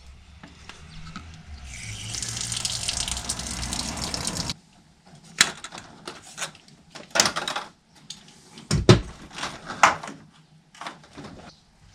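Water running hard from a tap for about three seconds, then cut off suddenly. Scattered clicks and knocks follow.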